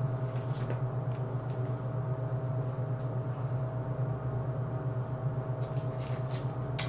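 Steady low electrical hum with a faint steady tone above it, and a few faint clicks and crinkles near the end as a trading card in a hard plastic case and its foil wrapper are handled.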